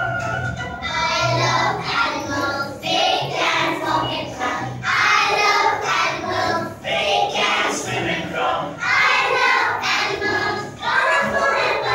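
A group of young children singing a song together in chorus, with music.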